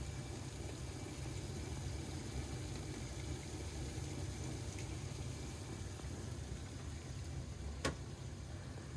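Water pouring and splashing into a saltwater aquarium sump chamber, a steady rushing trickle over a low hum. One sharp click comes near the end as the acrylic lid of the chamber is set back down.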